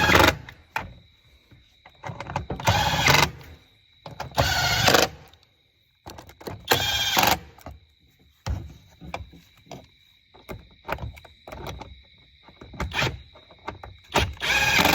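Power impact driver running in five short bursts of about a second each, driving in the air box screws on a Ram 1500's engine. Scattered light clicks and knocks of plastic parts being handled come between the bursts.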